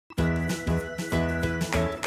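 Background music with a steady beat, starting abruptly a moment in.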